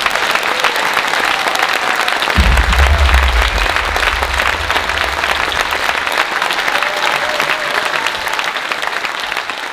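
Theatre audience applauding steadily, many hands clapping at once. A low rumble sits underneath for a few seconds, starting about two and a half seconds in.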